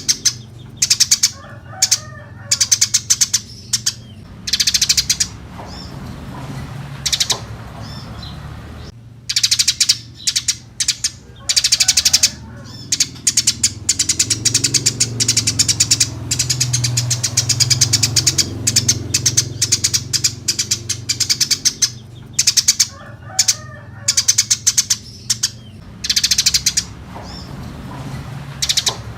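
Eurasian tree sparrows chirping vigorously in repeated bursts of rapid, high chirps separated by short pauses, over a low steady hum.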